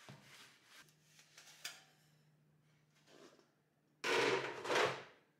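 Microfiber cloth rubbing over the painted sheet-metal shell of a torpedo heater, polishing it: faint wiping strokes at first, then two much louder strokes starting about four seconds in.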